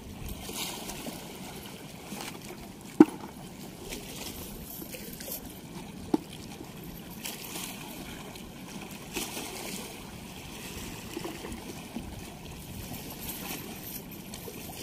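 Water running steadily at a weir, with two sharp clicks about three and six seconds in and lighter knocks while a wet cast net and its weighted chain are sorted by hand on concrete.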